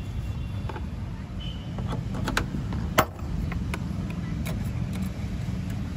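Plastic trim clips in a car's roof trim being pried loose: a handful of short sharp clicks and knocks, the loudest about three seconds in, over a steady low rumble.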